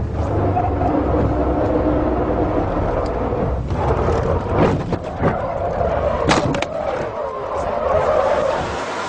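Car engine droning, heard from inside the cabin, then a run of sharp bangs and knocks between about four and seven seconds in as the drifting car crashes. The low drone drops away near the end.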